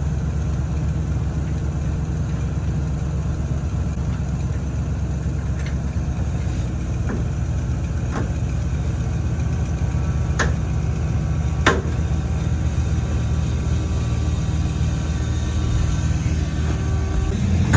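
Engine of a work vehicle idling steadily, with a few short sharp clicks or knocks in the middle.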